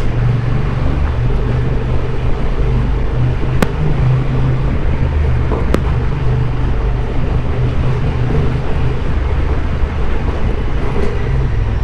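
Honda Transalp 750's parallel-twin engine running steadily as the motorcycle rides along, with road noise.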